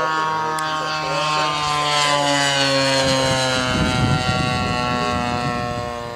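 The two-stroke 30cc gas engine and propeller of a Hangar 9 Spitfire radio-controlled model plane on a fast low pass. The steady engine note drops in pitch as the plane goes by, loudest about four seconds in, then fades near the end.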